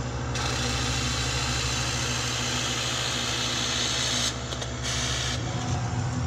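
CO2 laser cutter running over a brass rifle cartridge: a steady machine hum, with a broad hiss from the air-assist nozzle that switches on a moment in, breaks off briefly about four seconds in, and stops about a second before the end. The cartridge does not go off, so there is no bang: the shiny brass reflects the beam.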